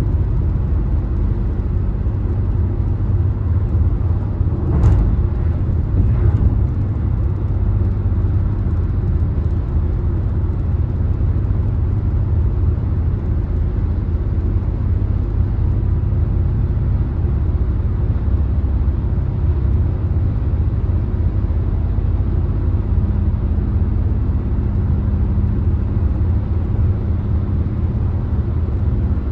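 Car driving at highway speed: a steady low rumble of road and tyre noise. A sharp knock comes about five seconds in, and a fainter one a second or so later.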